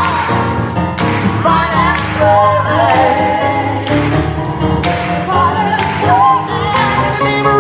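Gospel song: a singing voice with sliding, ornamented lines over instrumental accompaniment, with a steady beat of about one stroke a second.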